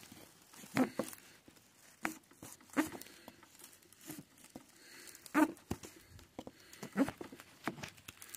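Irregular rustling and crinkling, broken by a few soft knocks spaced a second or two apart.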